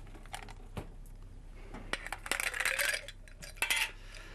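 Several light clinks and clatters of small hard objects: a few sharp single clicks, then a denser cluster about two seconds in and a short burst near the end.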